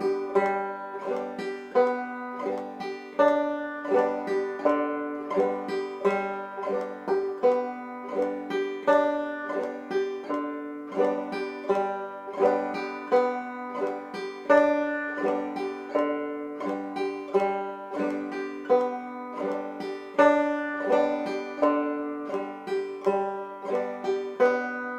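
Banjo played clawhammer (frailing) style: the basic frailing strum repeated at a steady medium tempo on open, unfretted strings, in an even, regular rhythm.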